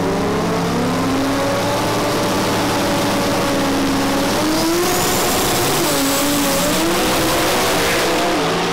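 Drag racing cars, one of them a twin-turbocharged big-block Camaro, run hard at the starting line and launch down the strip. A loud, steady engine roar wavers in pitch, and a high whistle comes in about halfway through.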